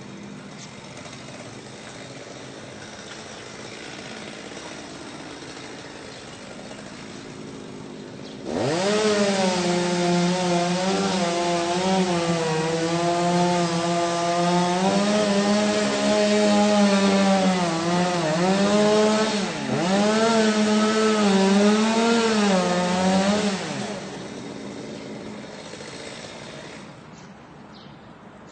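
Chainsaw idling, then throttled up sharply about eight seconds in. It runs at high revs for about fifteen seconds, the pitch sagging and recovering a few times as the chain bites into a tree. It then drops back to a low idle and falls away near the end.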